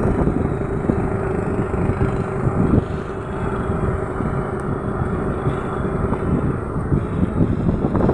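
Boat engine running steadily at an even pitch, over a dense low noise.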